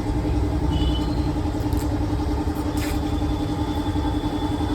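A steady engine-like hum with a constant droning tone, over a deep rumble of road traffic.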